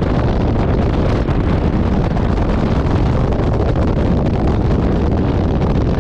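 Steady wind rush over a motorcycle-mounted microphone, mostly a low rumble, with the motorcycle's engine and tyres running underneath as it rides along at speed.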